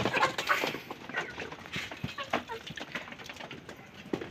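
Desi hens pecking at soaked bread mixed with crushed eggshells: a scatter of quick, irregular taps, with a few short bird calls.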